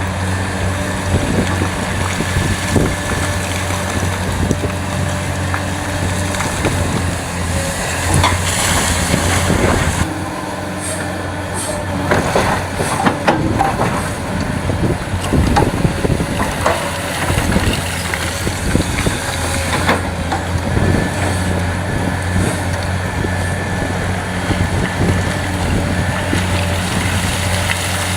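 Heavy diesel earthmoving machinery, a large excavator and dump trucks, running steadily with a deep engine hum. From about twelve to twenty seconds in comes a stretch of clattering knocks, like soil and rock being dropped into a dump truck's steel bed.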